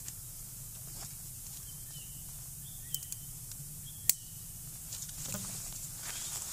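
Folding camp stool being opened out: a few clicks and rattles from its metal frame, the sharpest about four seconds in, over a faint steady hiss.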